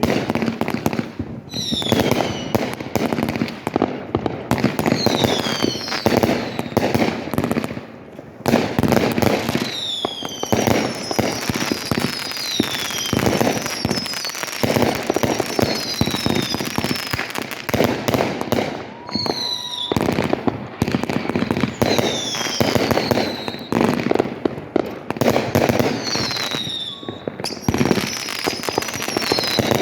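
Fireworks going off in rapid succession: dense crackling pops and bangs, with many short whistles that slide down in pitch.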